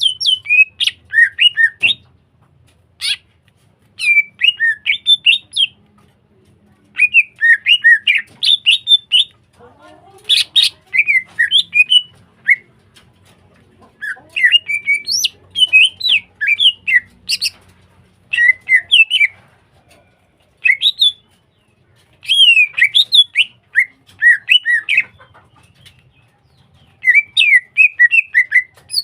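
Green leafbird (cucak hijau) singing at full, continuous song: phrases of rapid, varied chirps and whistled notes, broken by short pauses, with a few sharp clicks among them.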